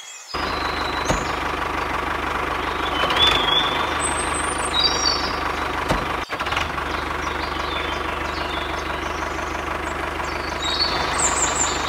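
Steady tractor engine running sound, even and unchanging, with a brief dip about six seconds in and a few short high chirps over it.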